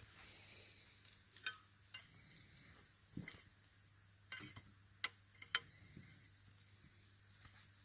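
Steel wrenches clinking and ticking as they are picked up and sorted, in about eight short, scattered, light metal clicks, over a faint steady low hum.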